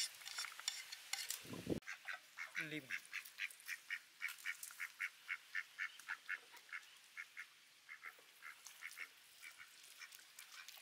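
A bird giving a fast run of short repeated calls, about three a second, which grow sparser after the first few seconds.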